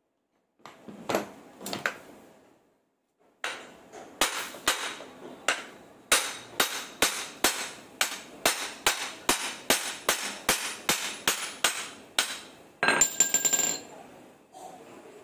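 Steel hammer striking the yoke of a propeller shaft to knock out a dry, worn cross joint (universal joint). A few scattered knocks give way to a steady run of strikes, about two to three a second, and the run ends in a ringing metallic clatter near the end.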